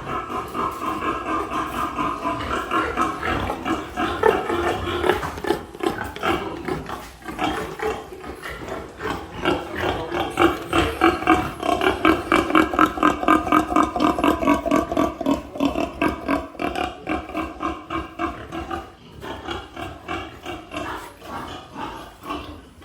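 Piglets squealing continuously and loudly in rapid, pulsing cries as they are handled and taken away from the sow at weaning, easing off near the end.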